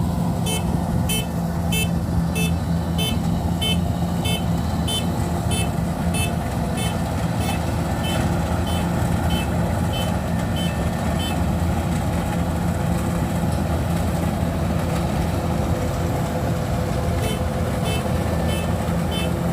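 Kubota DC93 combine harvester's diesel engine running steadily under a high electronic warning beeper that sounds about twice a second. The beeping stops about eleven seconds in and starts again near the end.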